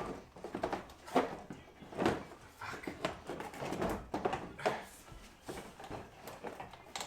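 Irregular knocking and clattering, a run of sharp knocks of uneven loudness, the loudest about a second and two seconds in.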